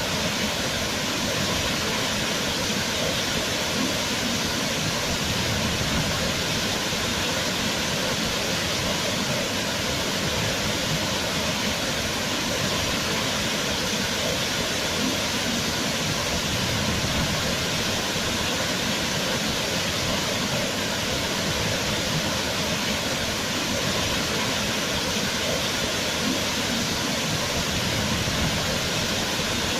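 Waterfall: a steady, dense rush of falling water with no change in level.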